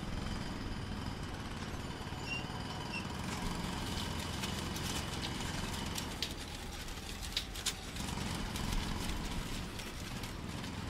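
Heavy machinery running with a steady rumble and scattered sharp metallic knocks and clanks.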